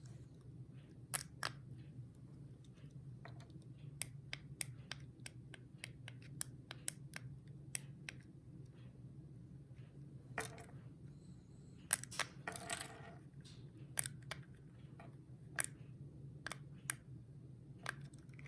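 Remote-controlled airsoft turret's mechanism moving, giving sharp irregular mechanical clicks and a brief scraping rattle over a steady low hum.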